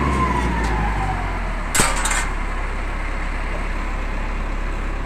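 Suction truck's engine running steadily with a low hum, drawing water out of a clogged manhole through a hose, with one sharp bang about two seconds in.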